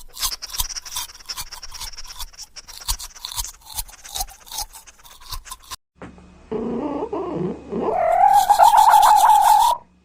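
Rapid scrubbing strokes of a toothbrush for about six seconds. After a brief pause comes a drawn-out pitched animal-like vocal sound that rises in pitch partway through and holds before cutting off near the end.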